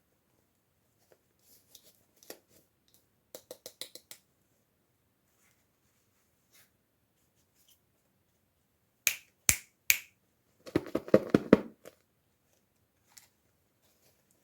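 Small toy pieces and packaging being handled: scattered light clicks and taps, then three sharp clicks about nine seconds in, followed by a short rapid rattle.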